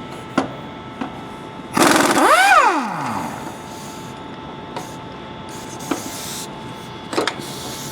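A power tool motor is briefly triggered on a body mount bolt, spinning up and winding back down in pitch over about a second, with a few sharp metallic clicks of the wrench and socket before and after.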